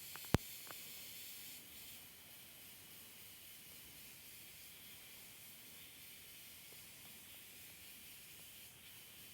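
Near silence: a faint steady hiss, with a sharp click shortly after the start.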